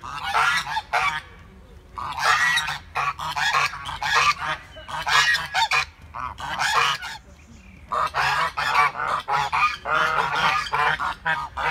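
Several domestic geese honking repeatedly in loud bouts of harsh calls, with a brief pause a little past halfway.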